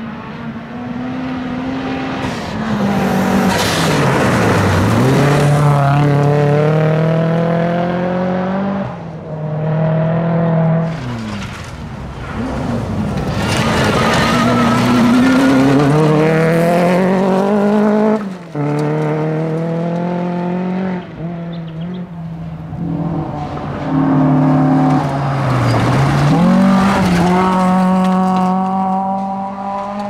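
Rally cars driven hard on a gravel stage, one after another. Each engine revs up through the gears, its note climbing steeply and then dropping sharply at each gear change.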